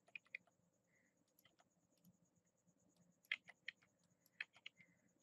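Faint, irregular clicks of a computer mouse and keyboard, a few at a time, with a denser run a little past three seconds in.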